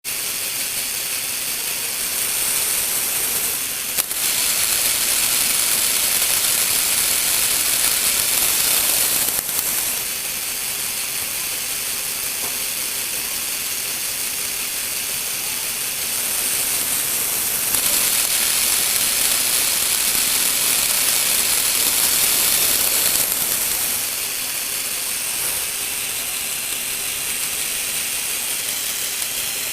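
Plastic Lego Technic gears whirring steadily with a ratcheting clatter. The noise grows louder and brighter for two long stretches, and two sharp clicks come near the start of the first loud stretch and at its end.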